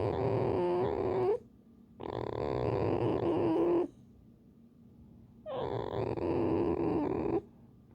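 Pet fox giving drawn-out, creaky grunting calls, three of them about two seconds each with short pauses between; the first is already under way at the start. It is the fox's grumbling 'creak' when pestered.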